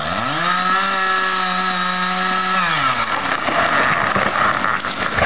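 Two-stroke chainsaw revving up to full throttle and holding a steady high note for about two seconds, then dropping back.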